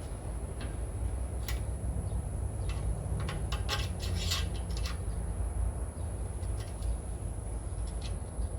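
Scattered light clicks and short rustles, bunched together about halfway through, over a steady low hum.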